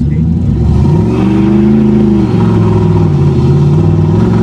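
Turbocharged 6.0-litre LS V8 in a Mustang accelerating hard; the engine pitch climbs, drops about two seconds in as it shifts gear, then pulls again.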